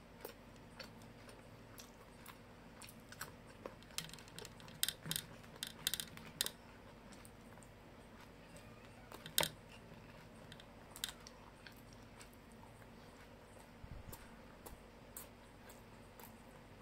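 Eating by hand: fingers working rice and fried chicken on a plate, with chewing and mouth smacks, heard as scattered sharp clicks. The clicks come thickest about four to six seconds in, with one loud click about nine seconds in.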